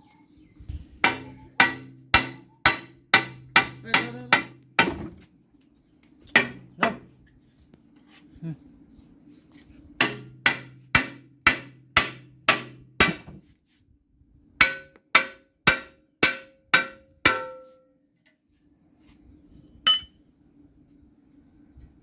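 Hammer blows on metal rotavator parts, in runs of about two strikes a second with pauses between the runs. The strikes in the later run ring with a clear metallic tone.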